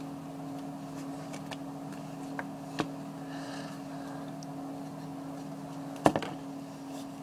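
Quiet room with a steady low hum, light clicks and a faint hiss from hands squeezing a plastic bottle of craft glue, and one sharper knock on the tabletop about six seconds in.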